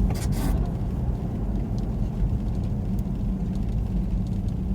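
Steady low rumble of a car's engine and tyres on a snow-covered road, heard from inside the cabin while driving slowly.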